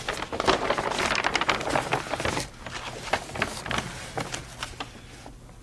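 A large newspaper rustling and crackling as it is shaken open and unfolded. The dense crackle lasts about two and a half seconds, then lighter, scattered rustles follow as the pages settle.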